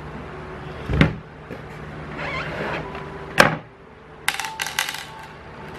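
Plastic top cover of a disassembled induction cooker being handled and laid down on a wooden workbench: a knock about a second in, some scraping, a sharper knock at about three and a half seconds, then a quick run of light rattling clicks near the end.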